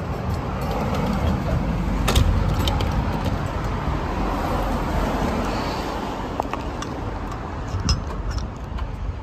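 Street traffic noise: a steady road rumble that swells over the first few seconds, as a vehicle passes, and then eases off. Scattered small clicks and taps run through it, more of them near the end.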